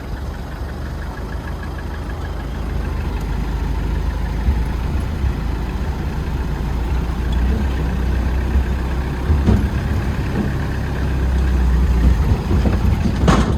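Truck engine running under way, heard from inside the cab, with a steady low rumble that gradually grows louder. A short sharp knock comes near the end.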